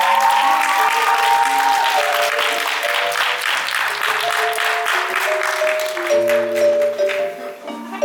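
Audience applauding at the end of a song, over the song's instrumental playout of sustained keyboard notes; the clapping thins out near the end.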